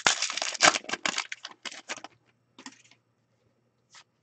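Wrapper of an Upper Deck Artifacts hockey card pack crinkling as it is torn open, in dense crackling for about the first two seconds. Then a few scattered soft clicks as the cards are handled and flipped through.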